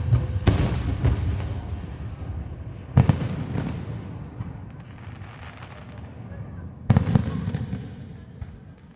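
Aerial fireworks shells bursting: a loud bang right at the start, then three more about half a second, three seconds and seven seconds in, each followed by a long rolling rumble that dies away.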